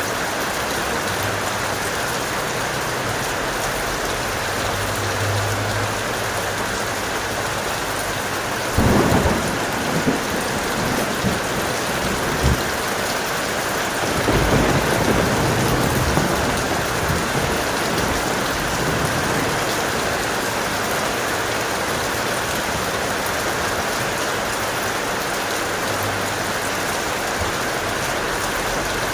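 Steady heavy rain, with a sudden crack of thunder about a third of the way in, followed by shorter jolts and a longer rolling rumble a few seconds later.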